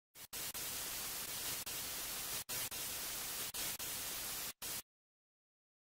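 Television static hiss: an even rush of noise broken by three brief dropouts, cutting off abruptly about a second before the end.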